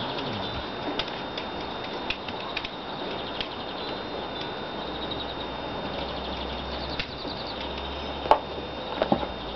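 Garden ambience with small birds chirping faintly. Near the end come a few sharp clicks of high-heeled shoes stepping close by.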